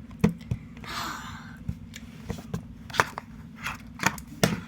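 Irregular sharp clicks and knocks, with a brief rustle about a second in, over a steady low hum.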